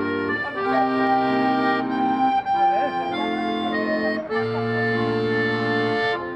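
Two accordions playing together: held chords over a low bass note, the chords changing every second or so.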